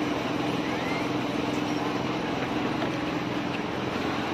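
A motor running steadily, a low, even hum.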